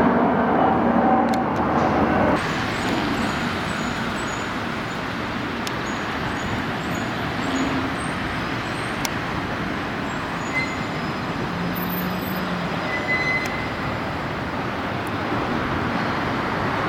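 Steady road traffic noise, with a louder engine hum that breaks off abruptly about two seconds in, leaving an even rush of passing traffic.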